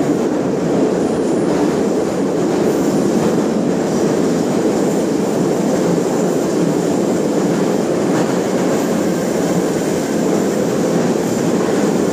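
Moscow Metro 81-717.5 subway car heard from inside the passenger saloon while running: a loud, steady rumble of wheels on rail and the car's running gear.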